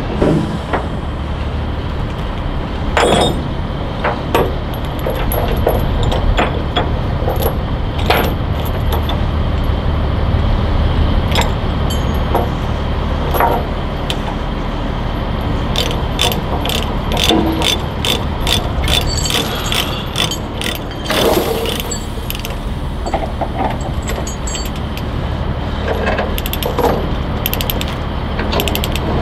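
Load-securing chain and ratchet chain binder being worked: scattered metal clanks and knocks, then a run of rapid ratchet clicks about three a second past the middle, over a steady low hum.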